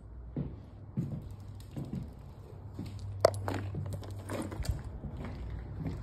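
Footsteps on a hardwood floor with a phone being handled, a soft knock about every half second and one sharp click a little over three seconds in, over a low steady hum.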